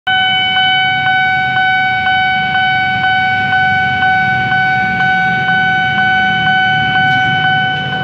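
Railway level-crossing warning siren sounding a loud, steady tone that pulses about twice a second, cutting off near the end.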